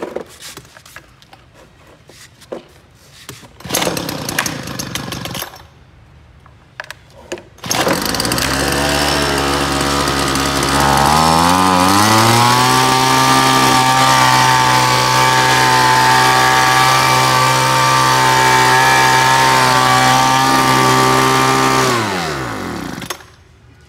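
Two-stroke petrol leaf blower being pull-started: a short pull a few seconds in, then it catches on a pull about eight seconds in and idles. About three seconds later it speeds up and runs steadily. Near the end it is shut off, its pitch falling as it winds down.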